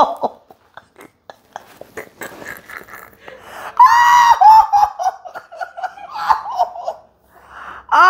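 A woman laughing in a high, squealing voice that breaks out loudly about four seconds in and wavers on for a few seconds, after a few faint clicks and rustles.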